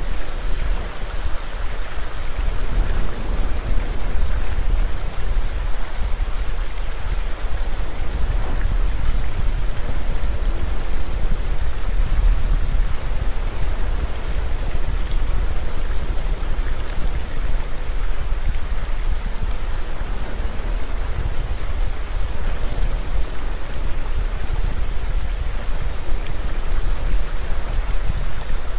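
A waterfall's falling water rushing into a pool: a steady, unbroken noise.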